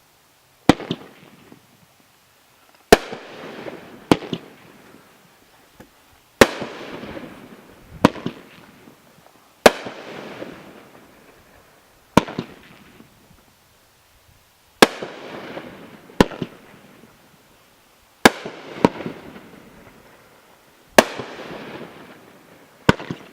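Alien Brand 'Earthquake Shake' firework cake firing shot after shot: about fifteen loud, sharp reports at uneven intervals of roughly one to three seconds, some in quick pairs, each followed by a noisy tail that fades over a second or two.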